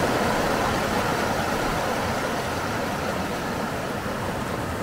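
River rapids: water rushing and splashing over a ledge of flat boulders, a steady rushing noise that eases slightly toward the end.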